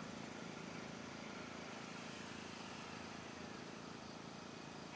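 Faint steady hum of an electric RC model plane's motor and propeller, the E-flite Carbon-Z Cessna 150T, flying at a distance. A faint whine slowly falls in pitch.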